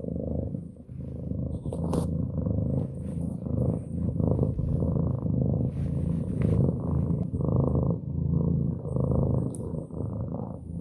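Maine Coon cat purring loudly right at the microphone, the purr swelling and fading about once a second with each breath in and out.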